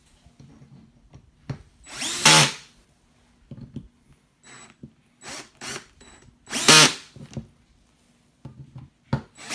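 Cordless drill-driver running in short bursts as it drives small screws into a fuel rail: three main runs, about two seconds in, near seven seconds and just before the end, each winding up in pitch, with a few brief blips between.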